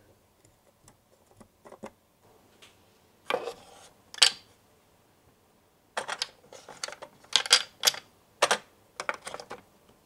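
Small plastic toy kitchen pieces clicking and clattering as they are handled and set down: a few faint ticks, two louder clatters about three and four seconds in, then a quick run of clicks in the second half.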